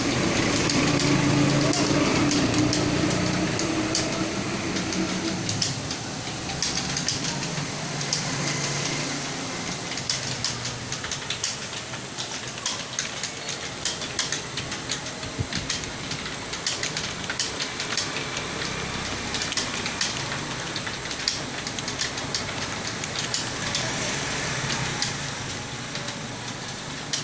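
Computer keyboard being typed on at speed: rapid, irregular key clicks over a steady background murmur that is louder for the first few seconds.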